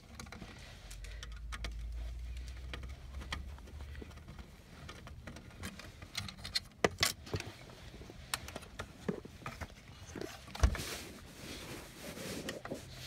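Scattered clicks and light metallic rattles from handling a screwdriver and screws at a car's dash, with a low rumble for the first few seconds.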